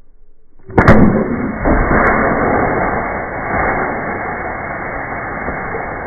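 A sharp crack about a second in as a pellet-rifle shot punctures an aerosol spray paint can, followed by the can venting its paint and propellant in a long, steady rush of spray that eases slightly over several seconds.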